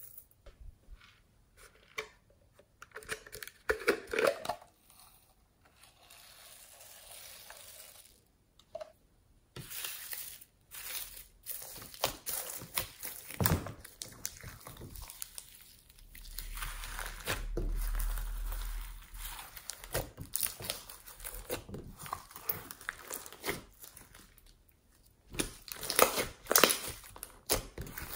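Sequins and foam beads sprinkled onto glossy slime, then worked in by hand: a dense run of crackling and crunching as the beaded slime is pressed and stretched, loudest in bursts near the end.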